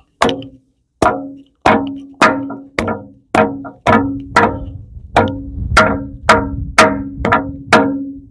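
Hammer tapping the guide ring of a JCB backhoe hydra clamp seal to drive it level onto the seal in its housing: about fourteen sharp, evenly spaced knocks, roughly two a second, each with a short metallic ring.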